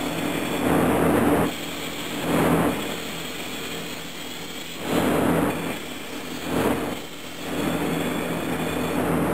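Pneumatic vacuum lift assist (balancer hoist) in use, lowering a plate: a steady machine hum with five bursts of rushing air hiss as the balancer works.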